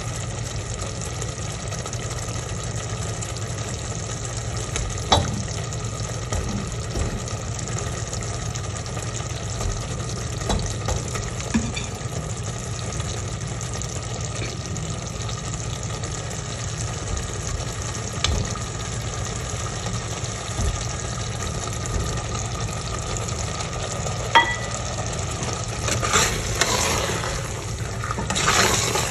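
Eggplant and potato curry simmering in a steel pot with a steady sizzling hiss. There are a few scattered clicks and knocks, then louder stirring and scraping of the spoon against the pot near the end.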